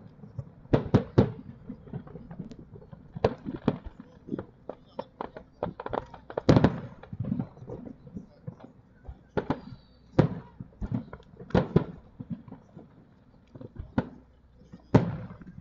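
Aerial firework shells bursting in a fireworks display: a string of sharp bangs at irregular intervals, some loud and a few in quick succession.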